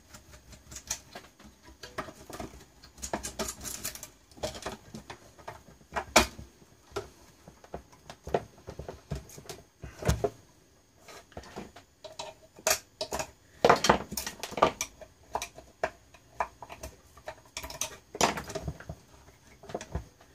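Irregular clicks, taps and knocks of hands and tools working on small parts as a panel meter is taken out of a bench power supply's front panel, with a few louder knocks toward the middle and near the end.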